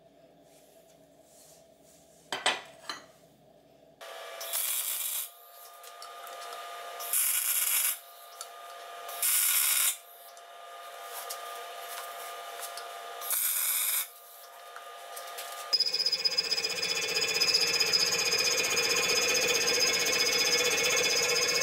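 A single metal clank of steel plates being set down. Then four short bursts of MIG welding, each a crackling hiss about a second long over the welder's steady hum. Near the end a milling machine starts face-milling a metal block, a fast steady chatter with a high ringing tone.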